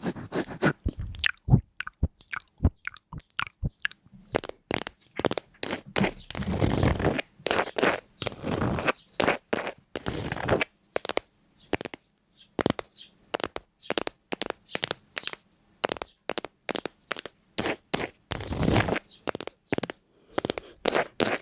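Crisp crunching and snapping: many short sharp cracks in an irregular run, broken by a few longer crunches.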